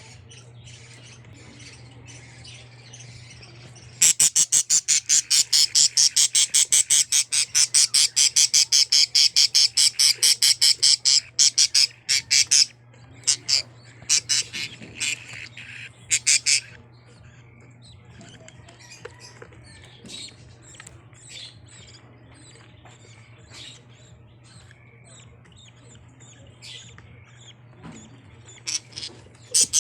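A bird squawking: a loud, rapid run of harsh repeated calls, about five a second, lasting some eight seconds. Scattered calls follow, then another rapid run near the end.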